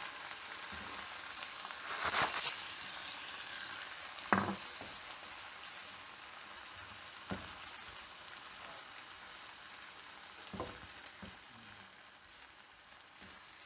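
Shredded pork sauce sizzling in a frying pan just after chicken soup has been poured in, the hiss slowly dying down. Four short knocks of a utensil against the pan come through it.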